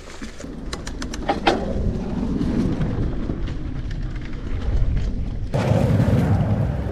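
Mountain bike being ridden along a dirt trail: wind buffeting the microphone over tyre rumble, with a few sharp clicks about a second in. The rumble grows suddenly louder about five and a half seconds in.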